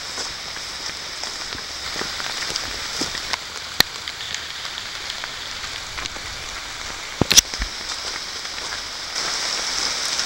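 Steady moderate rain falling, an even hiss, broken by two sharp clicks about four and seven seconds in, the second the louder.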